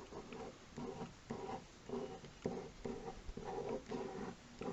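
Pen strokes on paper, quick short strokes repeated about two or three times a second, each with a slight squeaky pitch.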